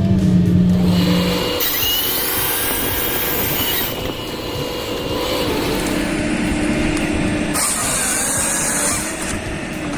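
Engines of heavy machinery running, in short clips cut together, with the sound changing abruptly about one and a half, four and seven and a half seconds in.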